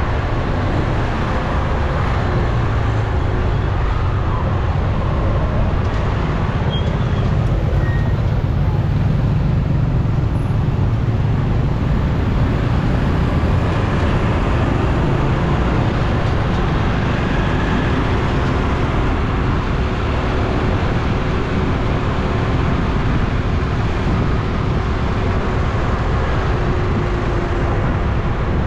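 Steady road noise of riding along a city street among motorbikes, with a constant low rumble of engines, tyres and moving air.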